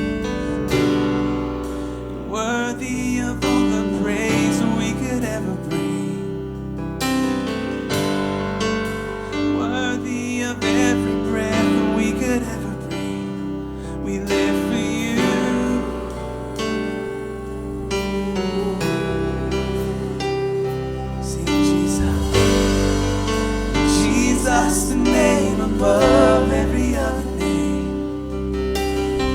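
Worship band playing a slow contemporary worship song: piano and bass guitar under sung vocals. The bass fills out and the music swells about three quarters of the way through.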